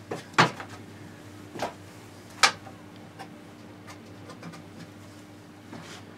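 Tools and parts being handled and set down at a table saw: a few sharp clicks and knocks, the loudest about half a second and two and a half seconds in, with fainter ticks between.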